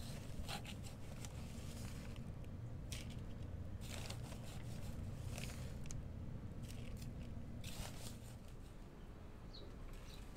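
Potting mix being scooped by a gloved hand out of a plastic bag into a plastic pot: irregular crunchy scrapes and rustles with the bag crinkling.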